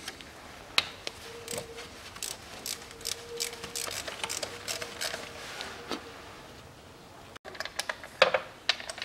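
Irregular metal clicks and clinks of an 8 mm socket tool loosening intake manifold bolts, with a faint steady hum through the middle.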